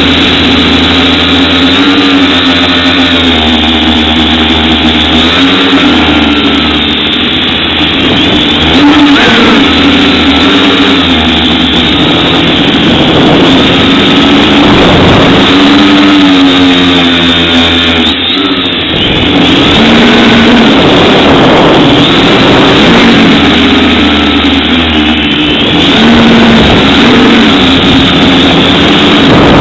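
FPV quadcopter's brushless motors and propellers whining loudly, the pitch rising and falling again and again with throttle changes, over a rushing noise of air.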